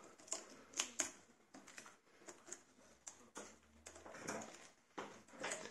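Faint, irregular clicks and taps of a small screwdriver tip and fingers working at a flat-cable connector on an LCD TV panel's circuit board, lifting the tape off it.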